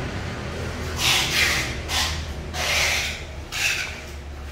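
Several short rubbing noises close to a phone's microphone, the first about a second in, from the phone being handled as it is moved around, over a steady low hum.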